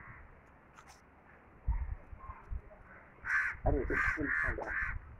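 A crow cawing about four times in quick succession, starting about three seconds in.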